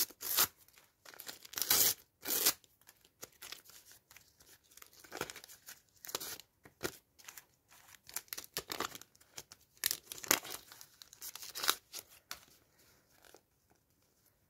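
Sticker packets being torn open by hand, their wrappers ripping and crinkling in irregular bursts of crackles, loudest at the start and thinning out towards the end.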